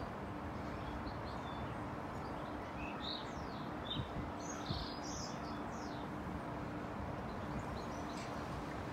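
Birds chirping faintly over a steady outdoor background hiss, with a cluster of short, high chirps in the middle.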